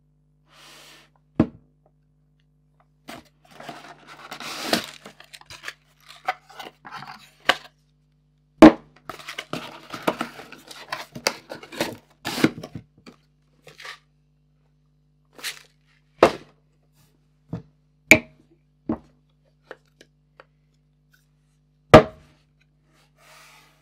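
Handling and packaging sounds: a string of sharp knocks and thuds, seven or so loud ones a couple of seconds apart, with stretches of crinkling and tearing in between, over a faint steady low hum.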